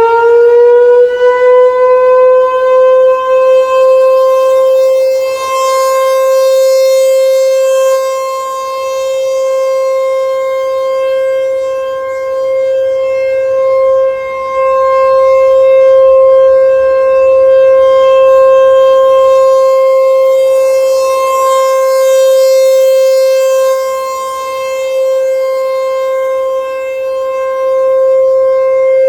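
ASC Tempest T-128 tornado siren, with its 6.5 HP DC motor and 8-port chopper, sounding the Alert signal: it finishes winding up to full pitch in the first two or three seconds, then holds one loud steady tone. The loudness swells and fades slowly as the rotating siren head turns.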